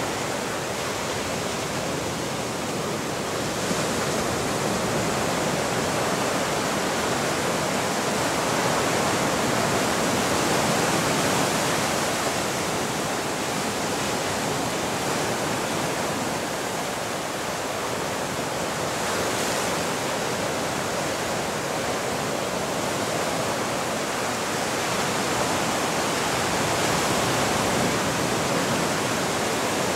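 Continuous rushing water, an even hiss with slow, gentle swells in loudness every several seconds.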